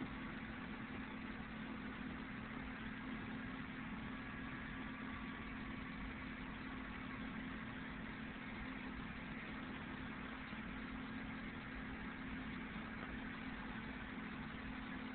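Steady low hum under a faint, even hiss, with no distinct events.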